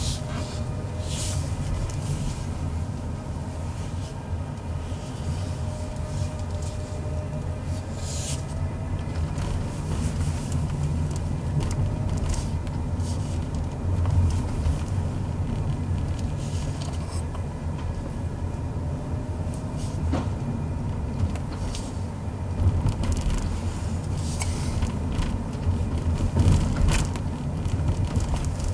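Car driving slowly on a street, heard from the dashboard camera inside the cabin: a steady low rumble of engine and tyres, with a few short clicks or knocks here and there.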